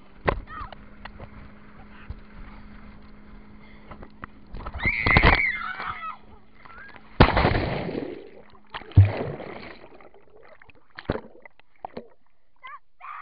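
Water splashing and rushing over an action camera as a towed tube rider is thrown through spray, with heavy splashes about five, seven and nine seconds in. After about ten seconds the camera is underwater and the sound drops to quieter bubbling.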